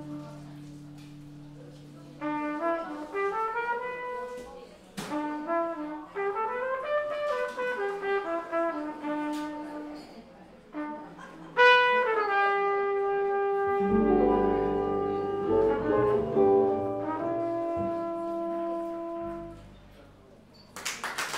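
Trumpet playing the closing phrases of a slow jazz ballad over guitar and double bass, peaking on a loud high note about halfway through, then settling onto a held final chord that fades out. Applause breaks out just before the end.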